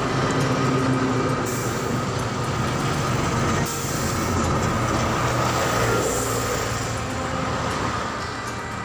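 Motor vehicle engines running, a steady mechanical drone.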